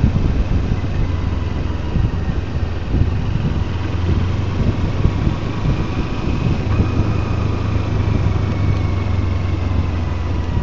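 Kawasaki Versys 300's parallel-twin engine running steadily at low revs while the motorcycle rides over a cobblestone road, heard from the bike.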